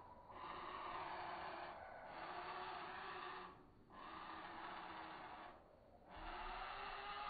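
Common starling nestlings begging from inside a wooden nest box at feeding time: a rasping chorus in repeated bursts of one to two seconds with short breaks between.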